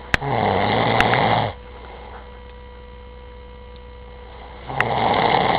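A man snoring loudly: two long snores with a low buzzing rattle, about four seconds apart. A steady electrical hum sits beneath.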